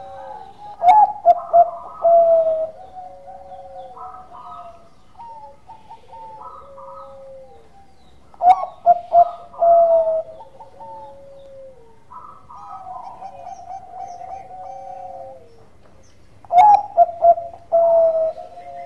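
Zebra dove (perkutut Bangkok) cooing. Three loud song phrases come about eight seconds apart, each a quick run of short notes ending in a longer falling note. Softer cooing carries on between the phrases.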